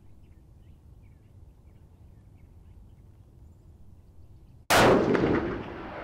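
A single 6mm Creedmoor rifle shot from a bolt-action American Rifle Company Mausingfield, fired during a load test, about three-quarters of the way in. It is a sharp crack with an echoing tail that dies away over the next second or so, after a quiet stretch.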